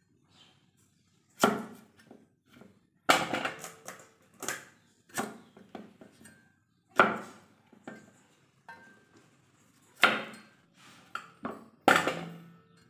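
A heavy steel cleaver chopping down onto a wooden chopping board as it slices a red onion. The knocks are sharp and irregular, coming one or two seconds apart and sometimes in quick runs of two or three.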